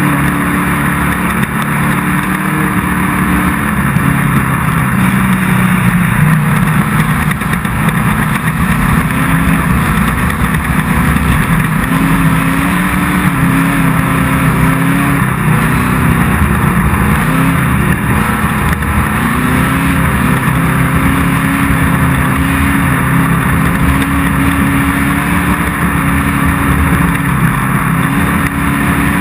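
Off-road race car engine running hard and continuously, its pitch stepping up and down a little with throttle, over a constant hiss of noise.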